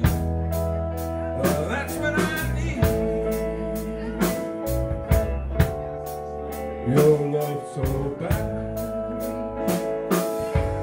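Live blues band playing a slow blues with no vocal: harmonica held notes over electric guitars, bass and drums, with a steady drum beat.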